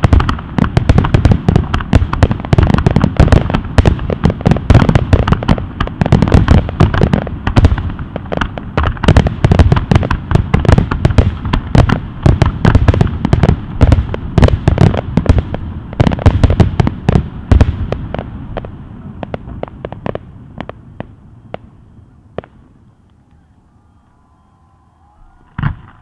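Fireworks display: a dense, rapid barrage of bangs and crackles that thins out after about eighteen seconds and dies away, then one last loud bang near the end.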